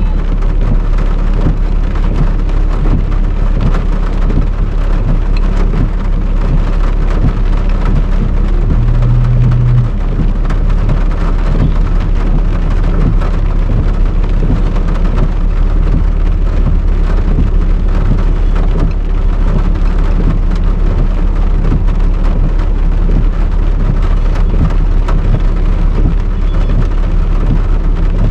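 Heavy rain pelting down in a dense, steady patter over a constant low rumble.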